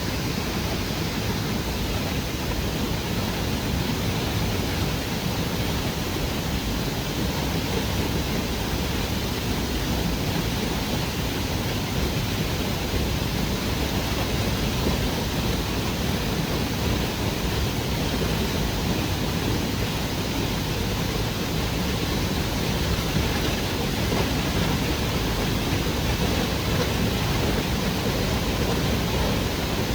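Waterfall rushing steadily as it falls into its plunge pool, an even, unbroken roar of water.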